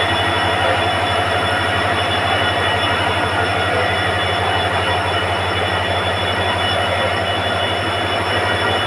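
WDG-4 diesel locomotive's EMD two-stroke V16 engine running with a steady hum and high-pitched whining tones.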